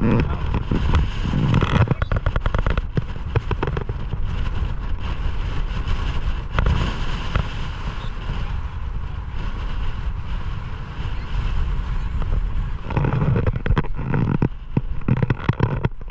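Strong wind buffeting the microphone in uneven gusts, a loud low rumble, with bursts of fine crackling, heaviest in the first few seconds.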